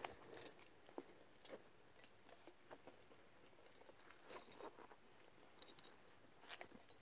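Faint handling noise of a rubber gas mask being turned over and its rubber flap pulled back in the hands: scattered small clicks, taps and rustles.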